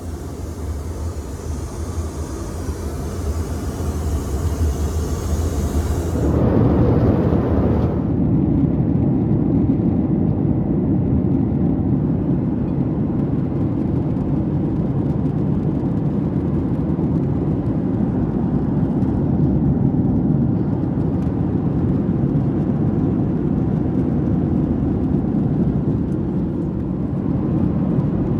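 Boeing 737-800 cabin noise in flight: a steady rush of engine and airflow. About six seconds in the high hiss drops away and a deeper, steady rumble continues.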